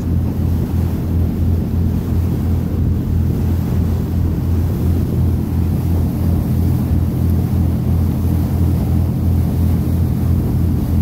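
Cabin cruiser's engine running steadily underway, a low drone with an even, regular throb.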